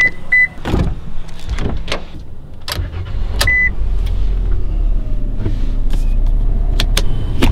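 Toyota Corolla unlocked with its remote key: two short high beeps, then door clicks and knocks and one more beep. A low engine rumble sets in about halfway through and keeps running steadily.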